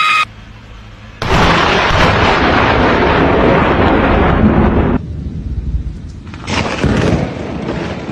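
A sudden loud thunderclap about a second in, rumbling on for about four seconds, then a second, weaker swell of rumble near the end.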